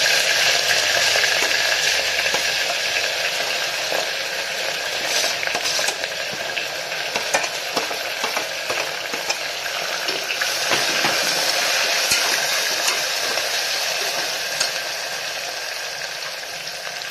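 Hot oil sizzling in an aluminium pressure cooker as grated ginger and garlic, green chillies and chopped green onion are tipped in and stirred, with scrapes and short clinks of a slotted steel spoon against the pot and plate.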